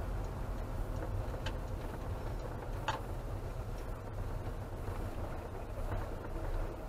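Camper van driving slowly in traffic, heard from inside the cab: a steady low engine and road rumble, with a couple of light clicks about one and a half and three seconds in.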